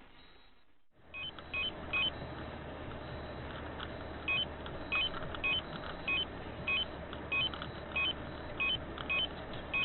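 Steady engine and road drone inside a truck cab, with a short two-pitch electronic beep repeating a little less than twice a second.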